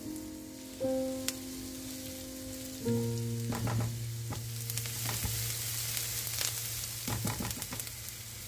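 Diced onions sizzling in oil in a nonstick frying pan, stirred with a spatula that clicks and scrapes against the pan over several seconds. The sizzle gets louder in the second half. Soft background music with long held notes plays throughout.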